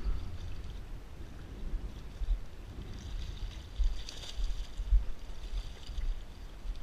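Hooked fish splashing and thrashing at the water's surface as it is reeled toward the dock, loudest from about three to five seconds in, over a low rumble of wind on the microphone.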